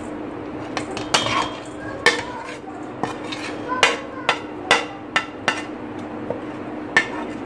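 Spoon knocking and scraping minced mutton off a plate into a stainless steel mixing bowl: about nine irregular sharp clicks and knocks over a steady low hum.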